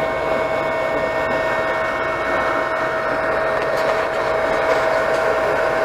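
Anycubic Chiron 3D printer running mid-print: a steady whir from its cooling fans, with a few constant tones over an even hiss.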